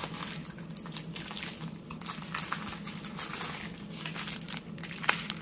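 Small plastic bags of diamond-painting drills crinkling as they are handled and sorted, with a sharper click about five seconds in, over a steady low hum.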